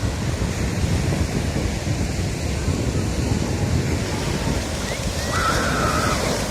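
Ocean surf washing in with wind buffeting the microphone. A single short call of about a second cuts through near the end.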